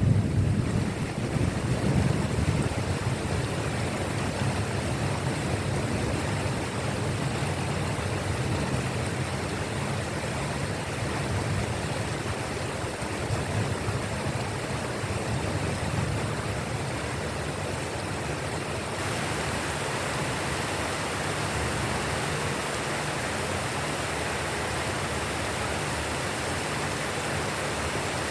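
Steady rain, an even hiss of downpour, with the low rumble of a thunderclap dying away in the first second or two. About two-thirds of the way through the hiss turns brighter.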